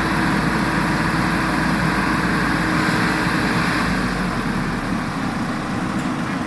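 Diesel engine of heavy machinery running steadily, a constant engine note with no clear revving.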